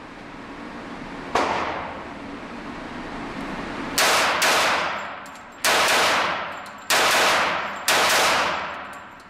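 .45 ACP semi-automatic pistol firing six shots, each ringing out in the echo of an indoor range. One shot comes early, then after a pause a quick pair, then three more about a second apart.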